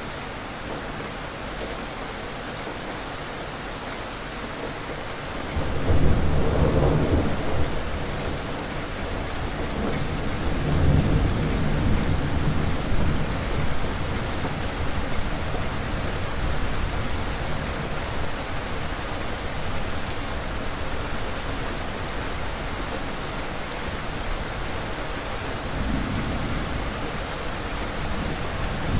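Heavy rain falling steadily, with a thunder rumble that breaks in about five seconds in and rolls on for several seconds, and a fainter rumble near the end.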